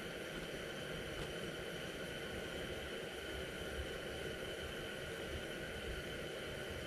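Steady hiss with a faint, steady high-pitched whine and a low rumble underneath, with no distinct events: the quiet ambience inside an ice-fishing shelter.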